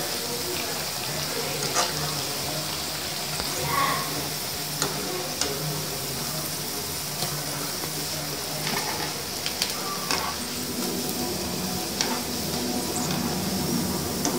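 Masala vadai sizzling as they deep-fry in hot oil in a kadai, with scattered clicks and scrapes of a wire spider skimmer against the pan as the fritters are turned and lifted out.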